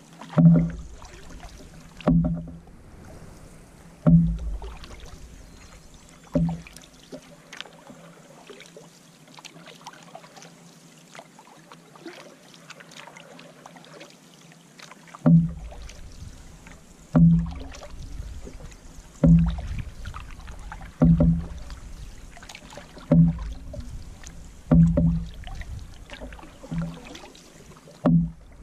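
Canoe paddle strokes, about one every two seconds, each a short low thump with a swirl of water. The strokes stop for several seconds in the first half, then resume at the same pace.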